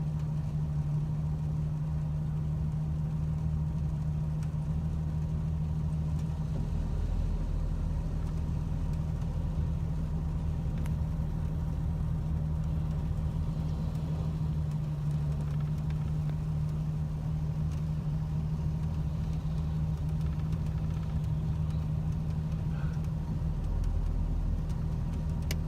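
Chevy vehicle's engine running steadily at a constant low pitch, without revving.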